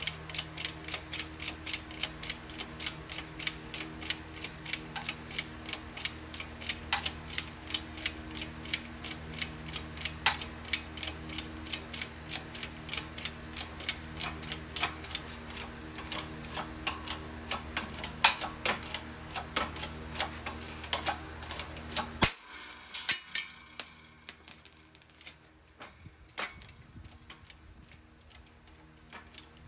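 20-ton shop press being worked to push a universal-joint bearing cap out of an axle yoke, ticking evenly about three times a second over a steady low hum. About 22 seconds in the hum stops suddenly and the clicks carry on fainter and more sparsely.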